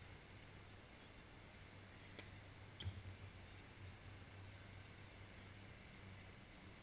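Near silence: faint outdoor background hiss, with two faint ticks about two to three seconds in.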